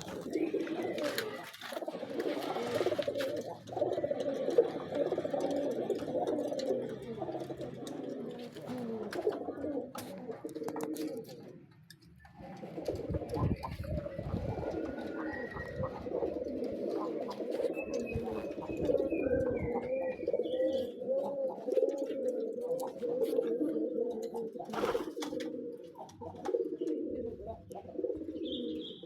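Domestic pigeons cooing, several birds overlapping in a continuous low, wavering coo, with a brief lull about twelve seconds in.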